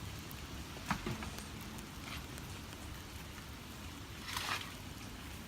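Steady hiss and patter of light rain, with a faint click about a second in and a brief scuffing noise near the end.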